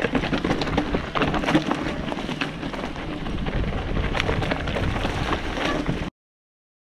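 Mountain bike rolling down a rocky singletrack: tyres crunching over loose stones and the bike rattling with constant small clicks. The sound cuts out to dead silence about six seconds in.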